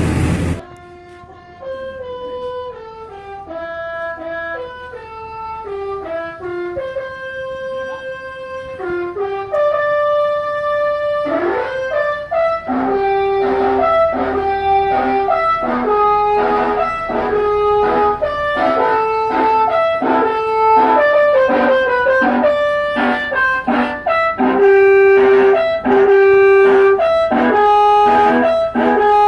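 A bus's musical air horn playing a tune in clean, brass-like held notes, stepping from pitch to pitch; after about eleven seconds the notes come faster and louder, several sounding together.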